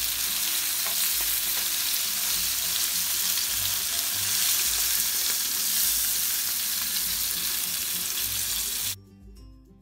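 Flour-coated horse mackerel on wooden skewers frying in hot oil in a pan, a steady sizzle. About nine seconds in the sizzle cuts off suddenly and faint background music takes over.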